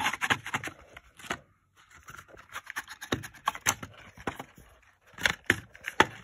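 Small cardboard product box being opened by hand: irregular scrapes, scratches and sharp clicks as its tab is pulled and the tray slides out, with a lull about a second and a half in.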